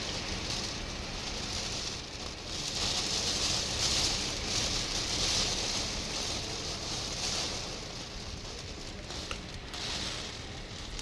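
Hurricane rain and wind, a steady rushing hiss that swells and eases with the gusts.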